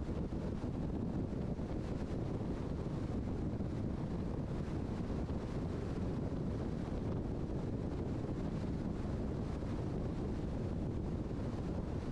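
Steady road and wind noise from a car driving at highway speed: an even, unbroken low noise with no distinct events.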